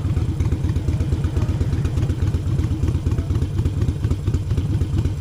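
Harley-Davidson Sportster Iron 883's air-cooled V-twin engine running steadily with a rapid, even low pulse.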